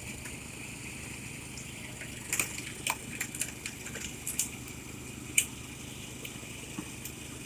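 Mini excavator's engine idling steadily, with a handful of sharp clicks and knocks, the loudest about five seconds in.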